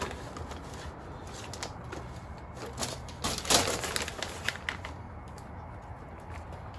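Handling noise of a cylinder head gasket in its plastic bag being laid against a cylinder head: scattered rustles and small clicks, thickest in the middle, with one sharper click a little after halfway.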